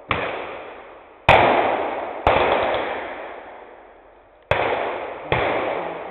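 Five single gunshots from blank-firing reenactment rifles, irregularly spaced a second or two apart, each followed by a long echoing tail.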